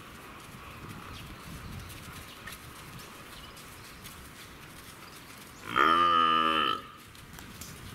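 An animal call: one loud call about six seconds in, lasting about a second, low-pitched with a wavering pitch.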